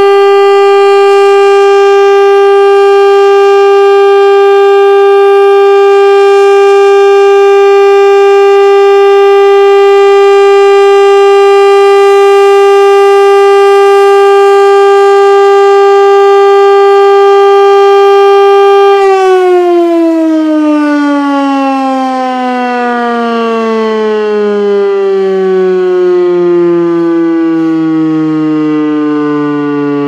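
Federal Signal STL-10 outdoor warning siren sounding the steady full-alert tone at one unchanging pitch. About two-thirds of the way in, its pitch starts falling steadily as the siren winds down.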